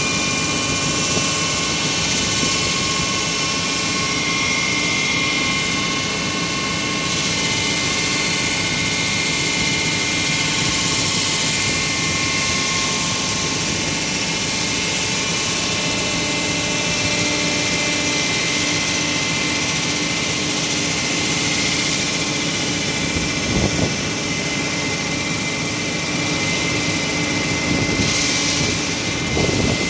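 LP32 hydraulic wall saw running its diamond blade through a reinforced concrete roof beam: a steady, loud mechanical whine with several held tones over a rushing noise. A few short knocks come in the last several seconds.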